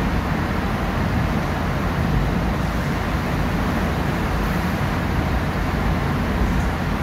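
Steady road noise of a car driving through a road tunnel, heard from inside the cabin: a constant low rumble of tyres and engine with no distinct events.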